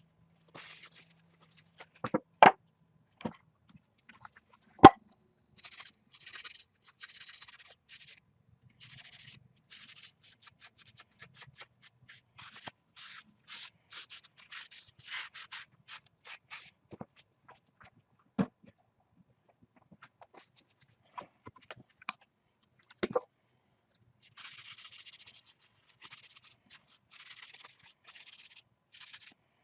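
Hand sanding on wood: quick rubbing strokes, a couple a second, in two long runs. A few sharp knocks fall between the runs.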